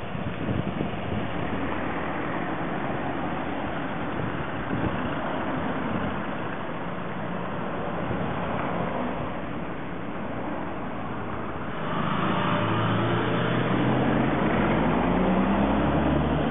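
Street traffic: cars driving around a small roundabout at a steady hiss. From about twelve seconds in, a vehicle close by becomes the loudest sound, its engine rising in pitch as it pulls away.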